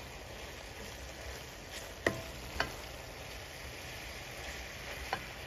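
Ground beef and sausage with peppers and onions sizzling in a skillet as a wooden spatula stirs it, with a few sharp clicks of the spatula against the pan: two about two seconds in, half a second apart, and one near the end.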